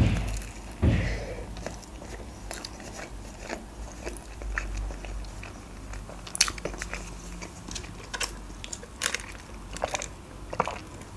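Close-miked eating of a KFC Boxmaster tortilla wrap: a loud bite at the start and another about a second in, followed by soft chewing with scattered small mouth clicks and crunches.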